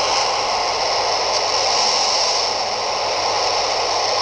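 Steady FM static hiss from a Yaesu VX-5R handheld radio with its squelch open, tuned to the AO-51 satellite downlink with no station coming through.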